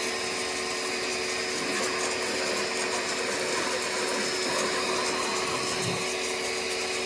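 Small pressure washer running steadily, its motor and pump giving a constant hum with the hiss of the water spray. It is a low-powered unit putting out only modest pressure.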